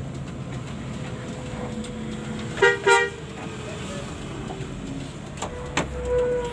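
Bus engine running steadily, heard from inside the cabin, with two short horn blasts about two and a half seconds in. Near the end there are a couple of knocks and a brief horn tone.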